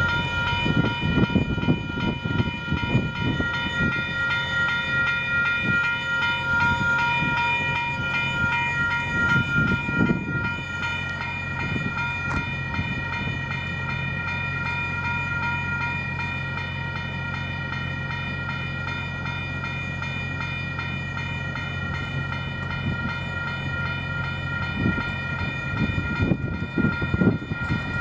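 Railroad grade-crossing warning bells ringing continuously with a rapid repeating ring while the gates are down. Under them a steady low hum runs through the middle, with gusty low rumbles near the start and end.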